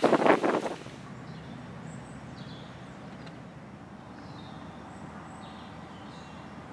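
A brief burst of wind buffeting the microphone, then steady low background rumble with small birds chirping faintly now and then.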